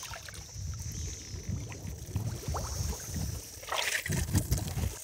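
Creek water sloshing and mud churning around a person's legs as he wades through a soft, deep creek bed, with a steady high insect hum behind it. A louder swish of water comes near the end.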